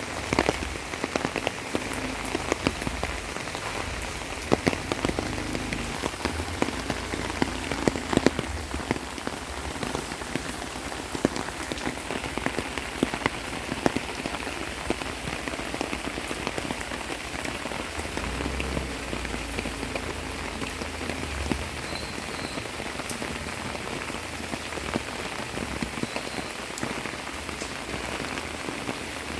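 Steady monsoon rain falling, an even hiss with many sharp drop hits, heavier in the first ten seconds or so.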